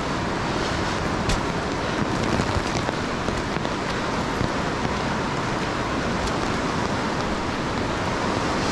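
Steady rushing of a river flowing over rapids, with a light click or two of footsteps on rock.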